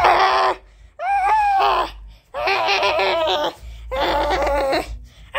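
High-pitched human laughter in four loud bursts, each about a second long, with short pauses between them.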